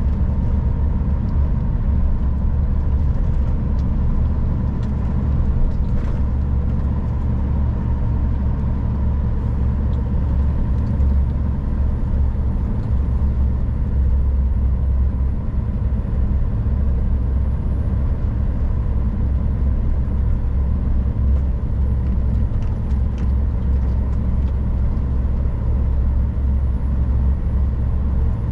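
Scania R440 truck's inline-six diesel engine running steadily under way, a constant low rumble with no gear changes or pauses.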